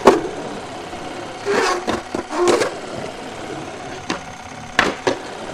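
Skateboard rolling and carving through a concrete bowl: a steady rolling rumble that swells louder twice around two seconds in, with sharp clacks of the board just at the start and again near the end.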